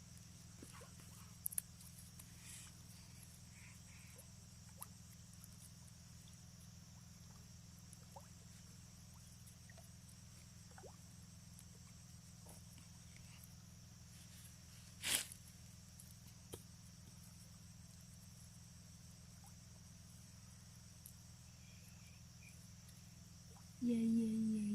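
Faint outdoor ambience: a steady high insect drone with scattered small clicks, and one sharp click about fifteen seconds in.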